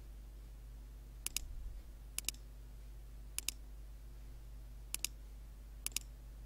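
Computer mouse button clicked five times, each click a quick press-and-release double tick, over a low steady electrical hum.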